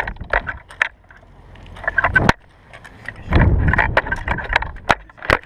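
Close-up handling noise of a drill rifle with the camera mounted on it: hands slapping, gripping and catching the rifle in sharp knocks, with wind rushing over the microphone as the rifle is swung. One rush cuts off with a knock a little past two seconds in, and a louder one comes a little past three seconds in.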